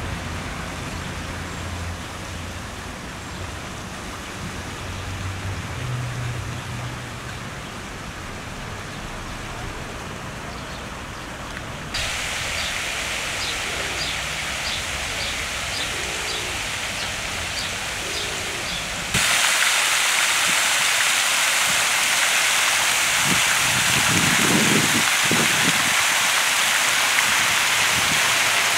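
Fountain jets splashing steadily into stone basins, a continuous rushing hiss of falling water. It grows louder in two sudden steps, about a third of the way in and again past the middle. A bird chirps repeatedly in the middle stretch.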